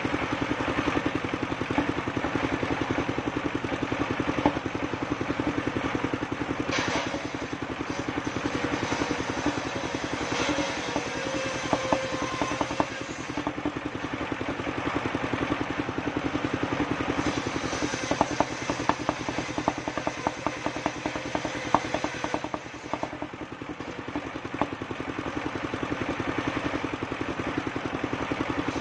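Engine of a homemade circular sawmill running steadily, with a fast even firing beat and a steady hum. Bursts of sharp clicking and clatter come in the middle.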